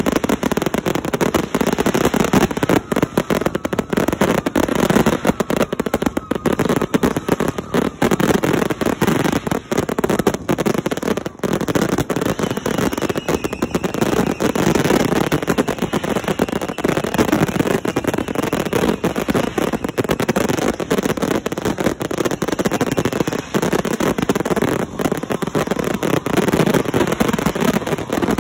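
Several heavy consumer firework cakes firing together in a continuous barrage: a dense, unbroken run of launch thumps, shell bursts and crackle with no let-up.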